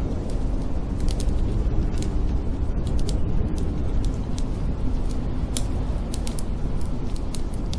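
A wood fire crackling in a fireplace, with many sharp, irregular pops, over a steady low howl of snowstorm wind.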